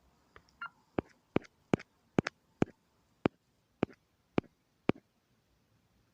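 A series of sharp, single clicks at uneven spacing, about two a second, stopping about five seconds in; one early click carries a faint short beep.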